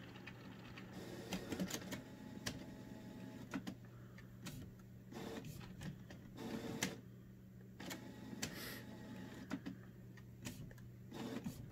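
Canon Pixma TS9120 inkjet printer starting a photo print job: faint, irregular short whirs and clicks from its mechanism, a dozen or so in a few seconds.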